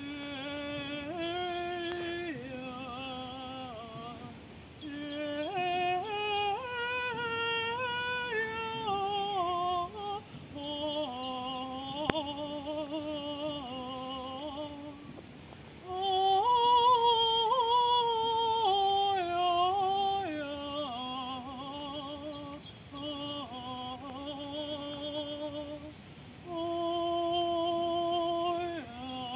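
A woman's unaccompanied solo voice singing in long held notes that step up and down in pitch, in slow phrases with short breaks between them; the loudest phrase comes about halfway through.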